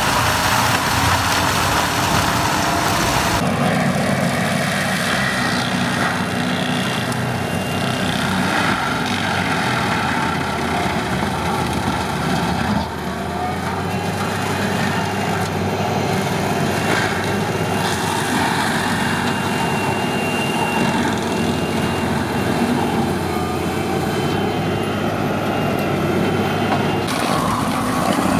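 Tracked forestry mulchers running at work: a diesel engine under load and a spinning mulcher drum grinding brush and saplings, steady and loud. The sound changes abruptly about three seconds in, around thirteen seconds and near the end, as one machine's recording gives way to another.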